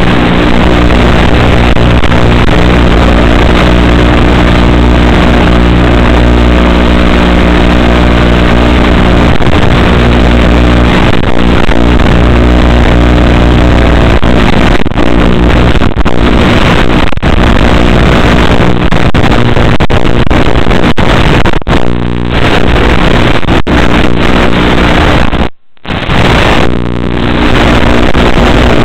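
Electric motors and propellers of an Eachine FPV quadcopter in flight, heard through its onboard video transmitter's audio as a loud, distorted, steady whine with a rough hiss. The sound drops out briefly several times in the second half, once almost completely near the end.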